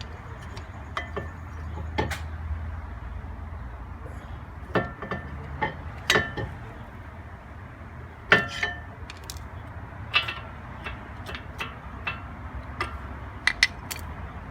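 Irregular metallic clicks and clinks, some with a short ring, as metal brake pad parts are handled. A steady low hum runs underneath.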